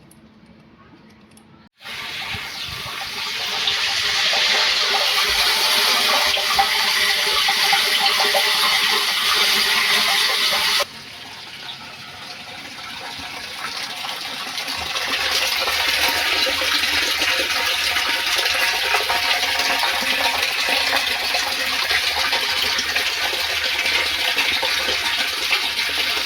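Water gushing steadily from the outlet of a CG submersible pump as it runs. The flow starts abruptly about two seconds in, drops off suddenly about eleven seconds in, then builds back up to a steady rush.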